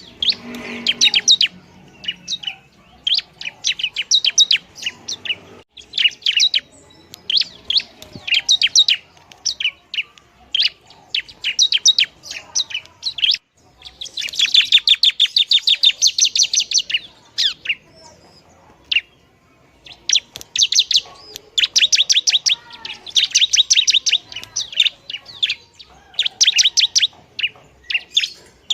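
Bar-winged prinia (ciblek) singing: bouts of rapid, high, repeated chip notes a second or two long, with a longer trill of about three seconds about halfway through.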